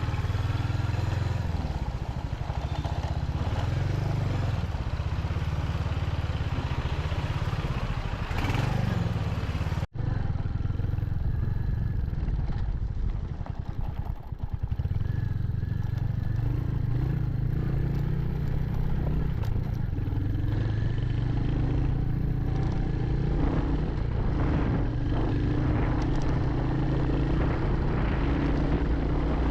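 Royal Enfield Hunter 350's single-cylinder engine running steadily under way. There is an abrupt cut about ten seconds in, and the engine eases off briefly a few seconds later before pulling steadily again.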